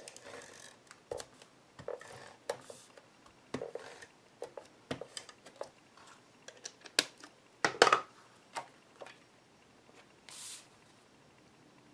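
Cardstock being handled on a tabletop while gluing: scattered paper rustles, slides and light taps, the loudest cluster about two-thirds of the way in, with a short brushing slide near the end.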